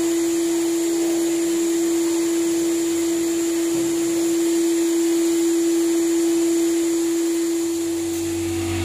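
Stainless-steel canister wet-and-dry vacuum cleaner running steadily through its long hose: a constant hum over rushing air.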